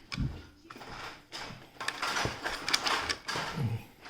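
Plastic take-apart dinosaur toy parts clicking and rattling in the hands as the toy is fitted back together, in irregular small clicks and knocks.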